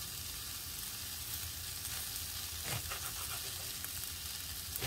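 Food sizzling steadily in a frying pan, with a couple of faint short knocks about two and a half seconds in and near the end.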